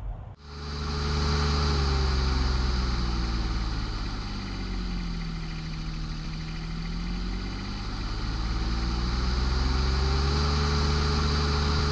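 Engine running at a steady speed, starting abruptly about half a second in; its pitch sags slowly for a few seconds in the middle and then climbs back to where it was.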